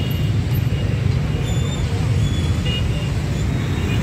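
Dense motorbike traffic running, a steady low hum of many scooter engines, with a few faint short high tones.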